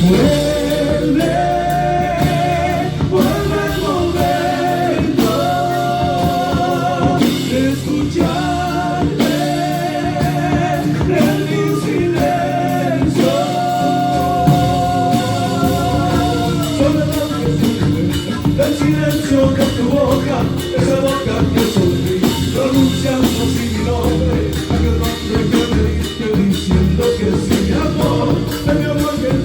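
Live band music, part of a song performance: a melody line of long held notes with vibrato over a full accompaniment, giving way after about seventeen seconds to denser playing without the lead line.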